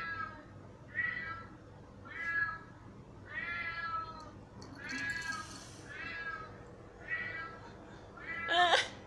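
A cat meowing over and over, about one meow a second, each call short and drawn, the last one near the end the loudest.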